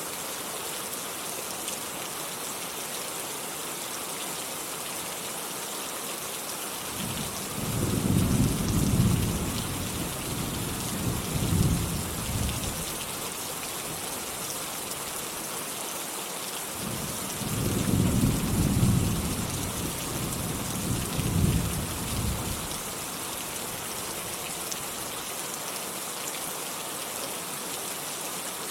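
Steady rain falling, with two long rolls of thunder, one starting about seven seconds in and another about ten seconds later.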